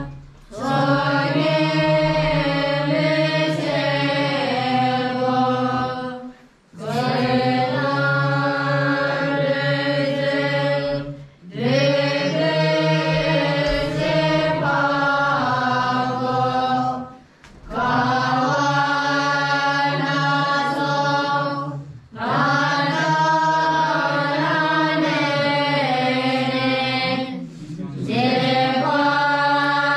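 Voices chanting a prayer in unison, on a low, steady pitch. The chant goes in phrases of about five seconds, with a short break between each.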